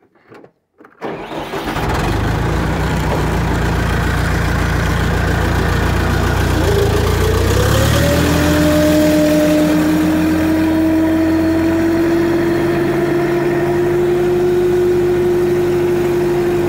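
Farm tractor engine running as the tractor drives along a chicken house, dragging a heavy wooden beam to level the poultry litter. The engine comes in about a second in. About seven seconds in, a whine rises and then holds steady.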